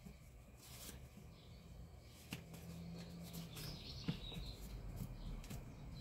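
Faint handling sounds: a cloth rag rubbing on a fan motor's metal end bell, with a few light clicks of the part.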